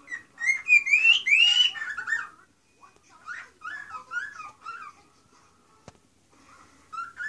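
Male cockatiel singing: a fast run of loud whistled chirps and rising and falling notes in the first two seconds, then softer warbling phrases, with one more short note near the end.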